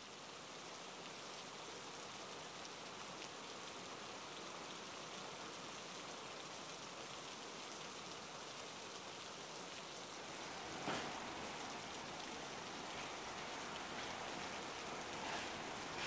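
Steady rain hiss. About eleven seconds in a sharp crack sounds, and a low rumble joins the rain after it.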